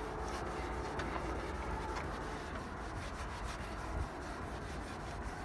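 A towel rubbed by hand over the oxidized, rust-pitted paint of a 1976 Impala's steel fender: a steady, faintly gritty scrubbing as the paint cleaner works off the buildup.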